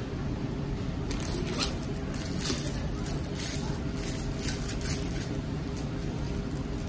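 Thin plastic bag crinkling and rustling in short bursts as a drink cup and straw are handled, over a steady low background rumble.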